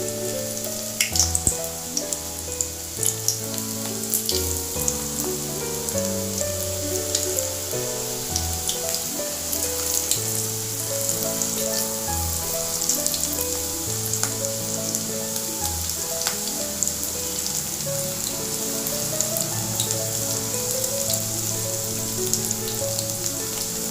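Beetroot and amaranth-leaf pakoda batter deep-frying in hot oil: a steady sizzle with frequent small crackles. Background music with a melody and bass line plays over it.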